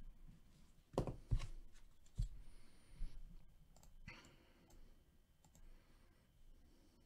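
A handful of faint, sharp computer mouse and keyboard clicks, about five in the first four seconds, as the owners' list is marked off; then near quiet.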